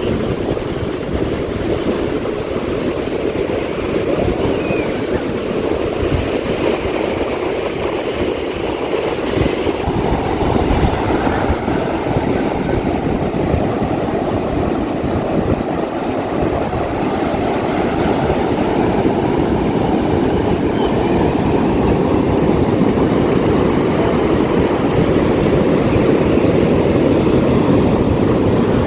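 Strong wind buffeting the microphone in an irregular low rumble, over the steady wash of waves breaking on the beach.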